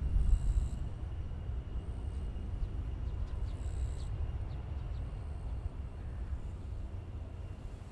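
Airliner engines heard from a distance: a steady low rumble with a faint high whine that slowly rises in pitch, loudest just after the start and then holding level.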